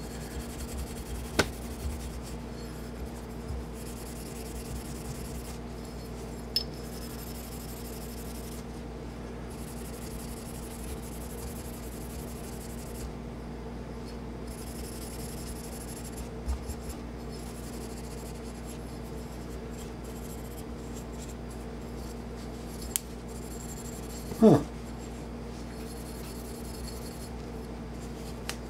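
Fine steel wool rubbing over the steel slide of a Kel-Tec P3AT pistol, a steady soft scratching as a fresh gun-blue touch-up is blended in, over a steady low hum. A few light clicks, and one short, louder sound about 24 seconds in.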